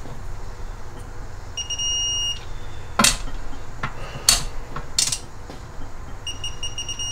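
Wrench work on the bolts of an NSG370 six-speed transmission case as they are rechecked: an electronic beep of about a second, three sharp clicks, then a second beep near the end.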